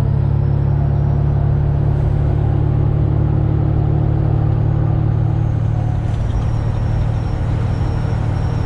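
Semi truck's diesel engine running steadily at cruising speed, heard from inside the cab as an even low drone with road noise.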